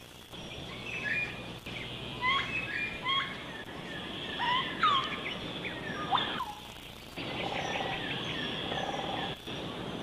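Plum-faced lorikeets calling: short, sharp calls that sweep up or down in pitch for the first six seconds, then a fast, dense chattering for a couple of seconds.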